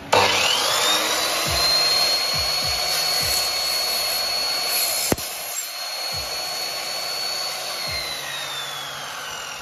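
Sliding compound mitre saw for aluminium, with a 2000 W motor and a 255 mm blade, switched on and spinning up to a steady high whine, running free without cutting. There is a sharp click about five seconds in, and the motor winds down with falling pitch near the end.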